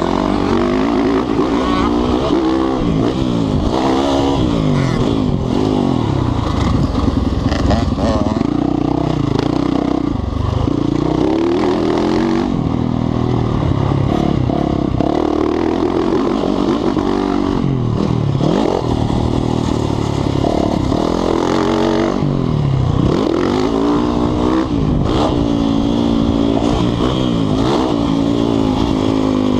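Motocross dirt bike engine heard up close from on the bike, its pitch rising and falling over and over as the rider works the throttle through the gears around the track.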